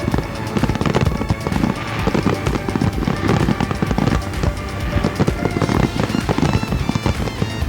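Fireworks bursting and crackling in quick succession over music.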